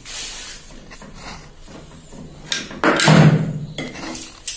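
Steel sewing-machine parts clattering: the lower shaft of an industrial sewing machine sliding free and being set down on the bench with its collar, with a few sharp metal clanks about two and a half to three seconds in, the loudest ringing briefly.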